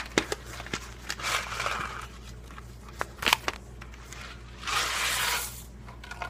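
Handling noises: scattered sharp clicks and two longer stretches of rustling, about a second in and again near five seconds.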